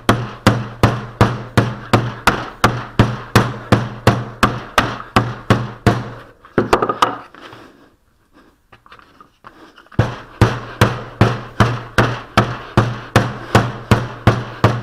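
Wooden mallet repeatedly beating a lump of old glazing putty on a bench board, in steady blows about three a second. The blows pause for a few seconds near the middle and then resume. The putty is being worked to soften old, crumbly ('short') putty back into a pliable state.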